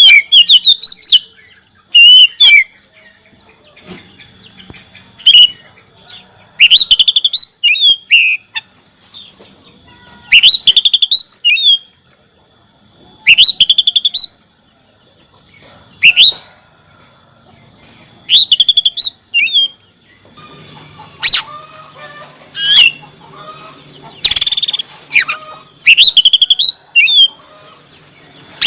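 Oriental magpie-robin (kacer) in full, vigorous song: loud short phrases of rapid trills and whistles, repeated every two to three seconds.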